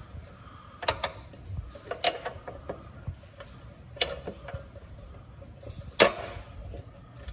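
Steel hex drive shaft of a Snapper mower's friction drive being slid back through the drive wheel hub by hand: scattered metallic clicks and knocks with light scraping, the loudest knock about six seconds in.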